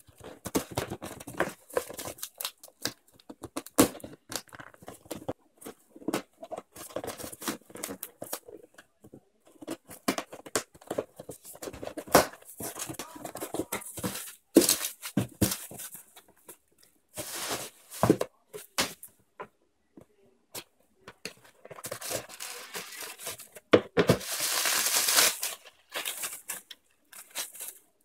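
A cardboard parcel being cut open and unpacked by hand: scissors and fingers working at the box, then bubble wrap and plastic packing rustling and crinkling in irregular bursts. A longer, louder burst of rustling comes near the end.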